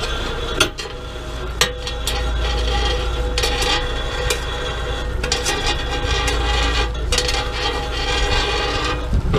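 Fishing boat's engine drone under a steady rubbing whir of a halibut longline paying out over the stern through the bait-setting tubes. Two sharp clicks in the first two seconds as baited hooks knock over the tubes.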